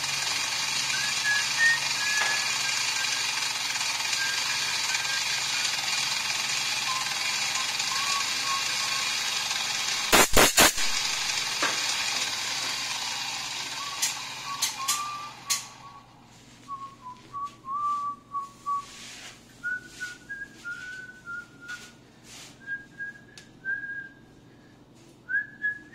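Bench drill-mill running as it drills into the front sight of an Imbel MD6 pistol slide for a fibre-optic insert, with someone whistling a tune over it. A few sharp clacks come about ten seconds in, then the machine runs down and the whistling goes on over scattered clicks.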